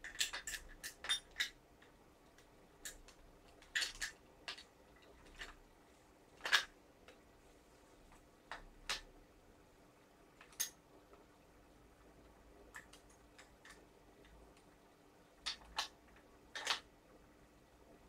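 Small metal parts and tools clicking and clinking as they are handled and set down, in scattered taps with a quick cluster at the start and another near the end.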